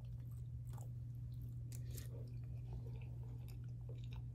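A person chewing a mouthful of baked penne pasta close to the microphone, with scattered soft wet mouth clicks. A steady low hum runs underneath.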